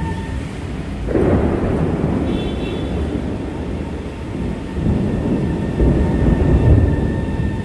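Singapore MRT train passing close by: a loud rumble of wheels on the track that sets in suddenly about a second in and swells again near the end.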